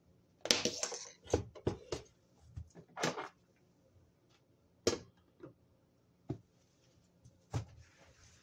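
A damp cloth wiping and being set down on a laminate kitchen countertop: a short rubbing swish about half a second in, then scattered sharp knocks and brief scrapes.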